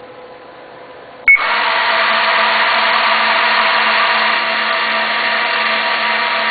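A short electronic beep from the control panel, then a Duplo 4000 booklet system's drive starts and runs steadily with a whirring hum after the up button is pressed.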